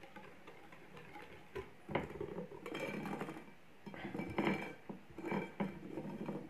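Wire whisk stirring a thick cocoa, egg and sugar mixture in a glass bowl, clinking and scraping against the glass in irregular bursts with brief pauses between them.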